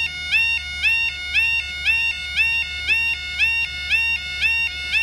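Level crossing yodel alarm: a loud two-tone warble stepping up in pitch, repeating about twice a second, sounding as the crossing barriers lift.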